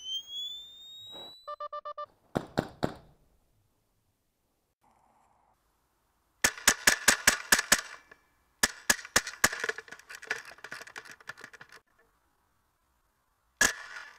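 Airsoft M4 with a PolarStar Jack HPA engine firing: a fast burst of about ten shots, then a longer, more spaced string of shots, and another burst near the end. Short beeps and a couple of clicks come first.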